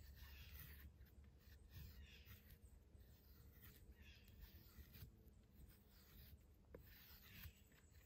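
Faint scraping strokes of a Skrama 240 bush knife's carbon-steel blade shaving curls down a wooden stick, about five strokes with short pauses between.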